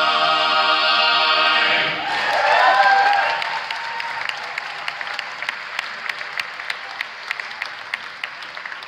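An a cappella choir holds a final chord that cuts off about two seconds in. The audience then breaks into applause with some cheering, loudest just after the cutoff and fading gradually, with one nearby clapper's sharp claps standing out.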